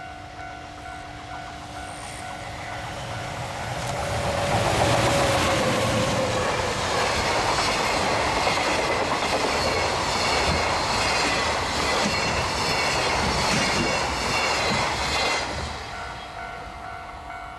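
A Japanese level-crossing alarm rings with a steady pulsing tone. Then an EF200 DC electric locomotive hauling a container freight train passes at speed: a tone drops in pitch as the locomotive goes by about four seconds in, and the wagons clatter over the rails for about ten seconds. The train noise fades near the end, leaving the crossing alarm ringing again.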